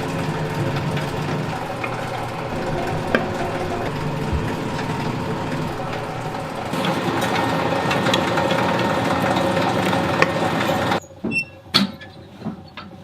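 A motor-driven workshop machine running steadily, then stopping abruptly about eleven seconds in, followed by a few sharp knocks.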